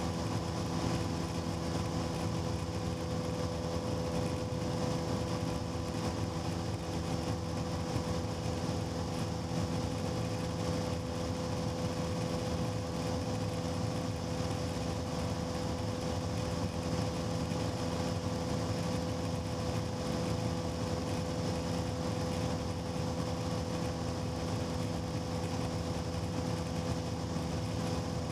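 Cessna 150's Continental O-200 four-cylinder engine and propeller running at a steady speed, a constant drone with no change in pitch.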